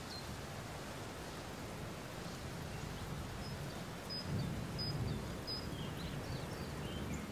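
Open-air ambience: a steady low rumble of wind, swelling about four seconds in, with a few faint, short calls from a flock of birds.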